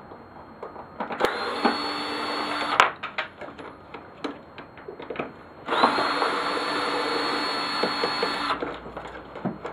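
Handheld power drill run twice, first for about a second and a half and then for about three seconds, spinning up quickly and holding a steady speed, as screws are backed out. Scattered clicks and knocks of parts being handled come between the runs.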